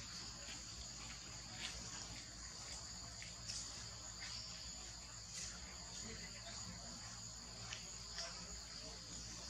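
Steady high-pitched insect chorus in surrounding vegetation, with a few faint scattered clicks.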